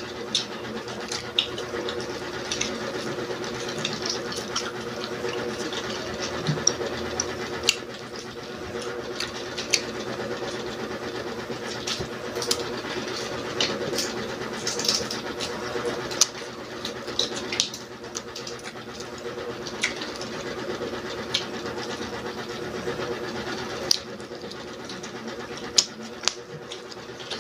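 Close-up chewing and crunching of crispy fried food: irregular sharp crunches and mouth clicks over a steady background hum.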